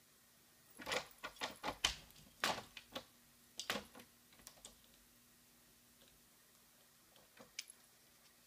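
Metal lever door handle rattling and clicking as a cat paws and pulls at it: a quick run of sharp clicks for about three seconds, then a few fainter ones near the end.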